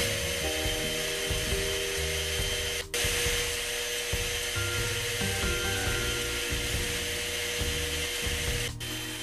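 Electric stand mixer running with its wire whisk beating egg whites to a froth in a stainless steel bowl, a steady motor whir. The sound cuts out for an instant about three seconds in and again near the end.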